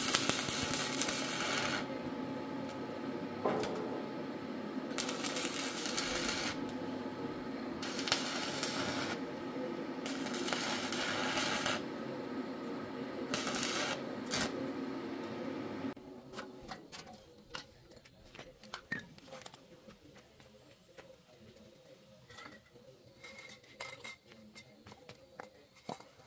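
Stick (arc) welding: the arc crackles and hisses in several short runs of one to two seconds each, over a steady hum. About two-thirds of the way in the welding stops, leaving only scattered light clicks and knocks.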